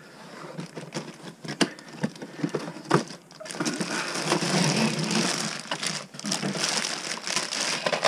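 A cardboard toy box being handled and opened, with a few sharp knocks, then a clear plastic bag of toy parts crinkling steadily from about three and a half seconds in.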